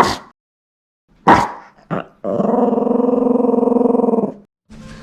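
A sleeping Yorkiepoo snoring: three short noisy breaths, then one long, steady buzzing snore lasting about two seconds.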